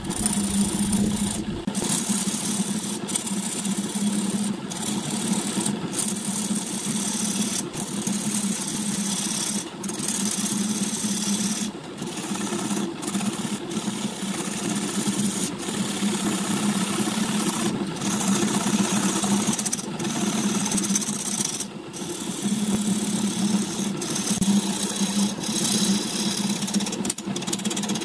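Wood lathe motor running with a steady hum while a gouge cuts the spinning wooden blank, a rough scraping hiss that breaks off briefly every few seconds as the tool lifts from the wood.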